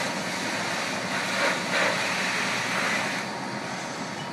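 A fire engine and its pump running steadily, a broad rumble and hiss, with a louder rushing hiss from about one to three seconds in.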